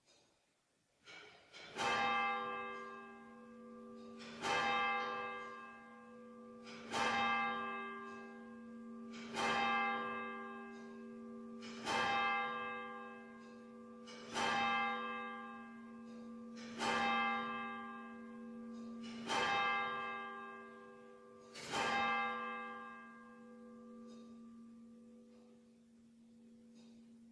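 A single church bell struck nine times at an even pace, about one stroke every two and a half seconds, each stroke ringing on and slowly fading, so that the hum carries through the gaps. It is a tower clock striking the hour: nine o'clock.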